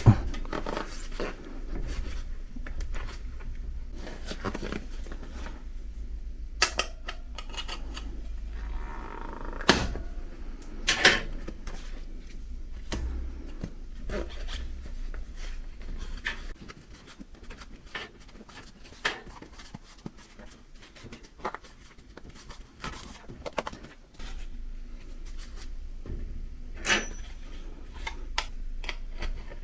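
Hands working on a bicycle wheel and tyre: irregular clicks, knocks and rubbing of the tyre, tube and metal rim being handled.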